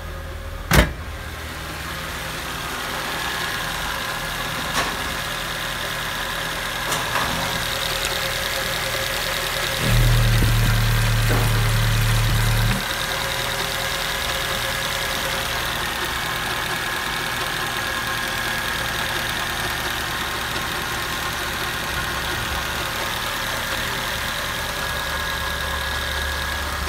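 Nissan SR20DE 2.0-litre twin-cam 16-valve four-cylinder engine idling steadily with the bonnet open. There is a sharp click about a second in, and a louder low hum for about three seconds near the middle.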